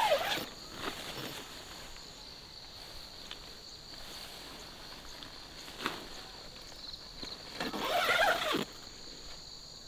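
Steady high-pitched insect chirring. There is a sharp knock about six seconds in, and a louder sound lasting under a second with a rising-and-falling pitch about eight seconds in.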